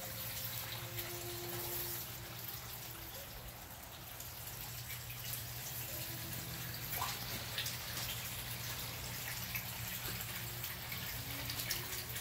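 Water trickling and dripping in a koi pond, with scattered small drips over a steady low hum.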